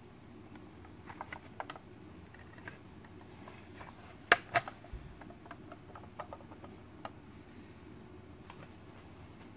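Scattered light clicks and knocks of a hard plastic aquarium fish feeder housing being handled and turned over, with a sharp double click about four and a half seconds in.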